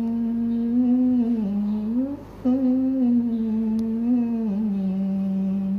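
A man chanting the adhan, the Islamic call to prayer, in long drawn-out melodic phrases, with a short pause for breath about two seconds in.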